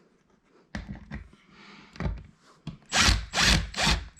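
Cordless drill driving a fastener into the desk in short trigger bursts, the last four louder and about half a second apart.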